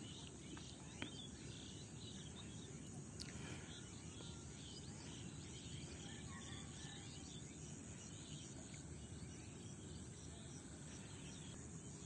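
Faint wetland ambience: many small birds chirping and twittering on and off, over a steady high insect drone.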